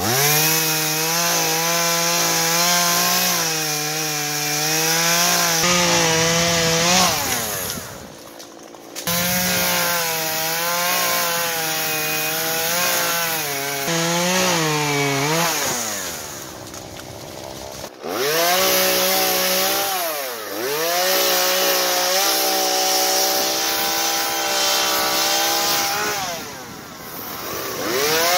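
Two-stroke chainsaw running at full throttle while cutting into a standing tree trunk, its pitch sagging under the load. Several times it drops back and then revs up again.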